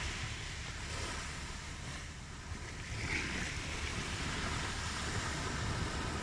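Ocean surf: waves washing in as a steady rush, easing off briefly and swelling again about halfway through.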